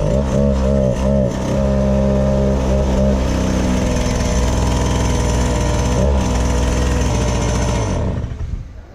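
Two-stroke cut-off saw engine on a motorized toy ride-on car, running as it creeps forward: the pitch rises and falls in the first second or so, then holds steady, and the engine sound drops away about eight seconds in.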